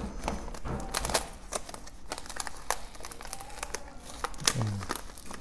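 Plastic courier mailer bag being crinkled and torn open by hand: irregular crackling rustles of the plastic as it is pulled apart.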